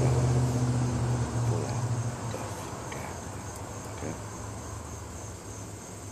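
A passing vehicle's engine hum fades out over the first couple of seconds, leaving a steady high chirring of insects, with a few faint ticks.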